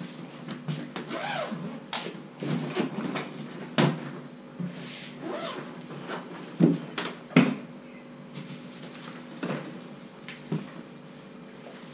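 Hard-shell wheeled suitcase being handled, laid flat and opened, with a smaller suitcase lifted out from inside it: a run of knocks and clatters from the plastic shell, the two loudest a little past the middle.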